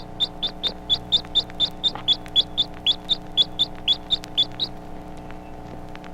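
Baby chick giving pleasure or contentment notes: a quick run of short, high, rising chirps, about four or five a second, that stops near the end, over a steady low hum.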